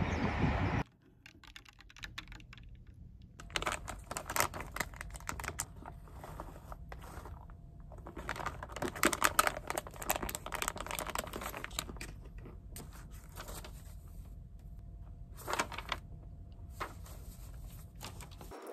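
Typing on a computer keyboard: bursts of rapid key clicks broken by short pauses. It follows a louder rushing noise that cuts off abruptly about a second in.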